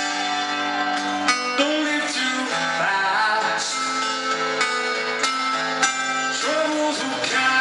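Live rock music led by an acoustic guitar, picking and strumming chords.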